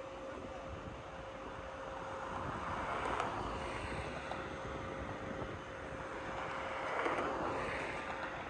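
Heavy construction machinery running steadily with a constant hum. A rushing noise swells twice, about two to four seconds in and again near the end.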